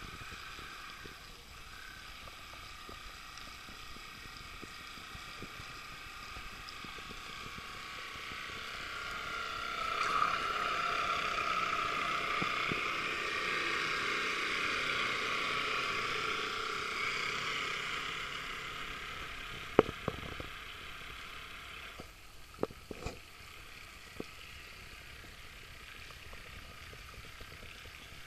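Motor of a 1/20 scale radio-controlled Damen Stan pushy cat model tug running: a steady high whine that swells as the boat passes close by about ten seconds in, then fades away. A few sharp clicks near the end.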